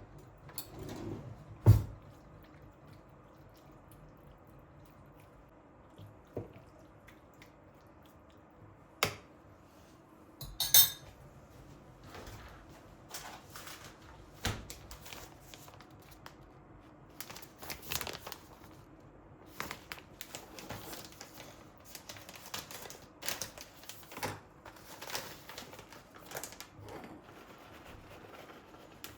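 Dishes and utensils being handled, knocking and clinking: a loud knock about two seconds in, a ringing clink near the middle, then a run of small clatters.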